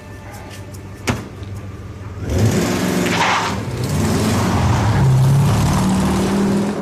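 A car door thumps shut, then a Porsche 928's V8 starts about two seconds in and revs loudly as the car pulls away, through a racing exhaust that sounds like a race car.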